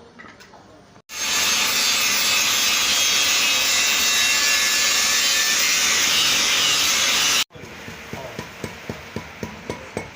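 A power tool grinding steadily and loudly for about six seconds, starting and cutting off abruptly. Then comes a run of even hammer strikes on metal, about three a second.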